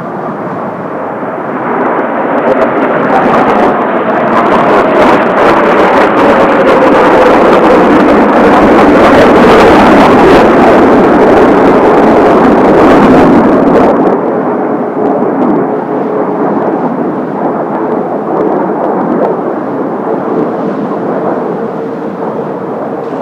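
Kawasaki T-4 jet trainers' turbofan engines passing in formation. The jet noise swells to its loudest near the middle with a falling whine, drops off abruptly partway through, then goes on as a steadier, more distant drone.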